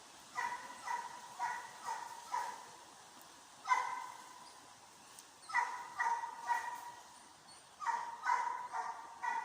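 Russian hound giving voice on the chase: high, pitched baying calls in bouts of several, about two a second, with short pauses between bouts.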